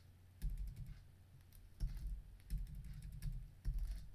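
Typing on a computer keyboard: a few short runs of keystrokes with brief pauses between them.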